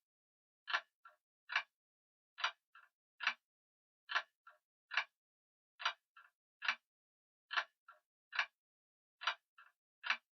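Grandfather clock ticking steadily, a sharp tick a little more than once a second, with a fainter extra click after every other tick.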